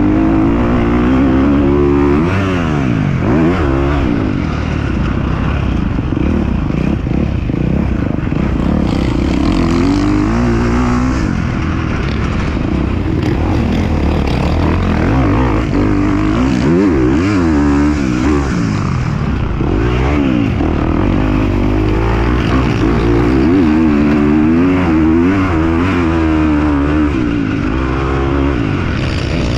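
Dirt bike engines revving up and down again and again, more than one at a time, over a steady low rumble.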